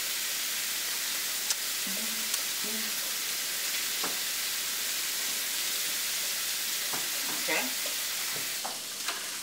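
Ground sausage and diced bell peppers sizzling steadily in a skillet, with a few light taps and scrapes of a plastic spatula stirring them.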